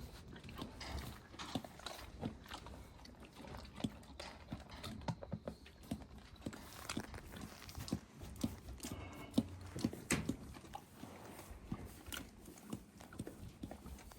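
A horse crunching and chewing hard mint candy, with a steady run of irregular, crisp crunches.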